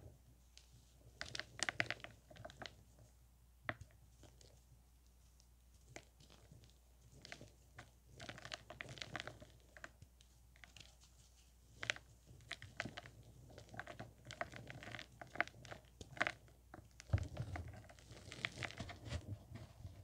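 Hands crushing and crumbling pressed chunks of chalky white powder, with soft crunches and crackles coming in irregular bursts.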